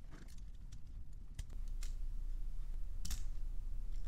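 LEGO Technic plastic parts clicking as pieces are handled and pressed together, a few scattered clicks with the sharpest about three seconds in, over a low handling rumble.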